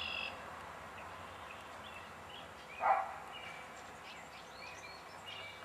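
Northern cardinal calling: short whistled slurs and chips, with other faint bird notes over a steady hiss. About three seconds in comes one brief, louder, lower-pitched animal call.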